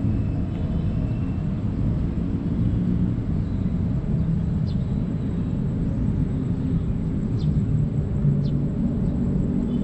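Steady outdoor rumble, low and noisy like wind on the microphone or distant traffic, with a few faint, short high chirps that fall in pitch, about five and seven and a half seconds in and near the end.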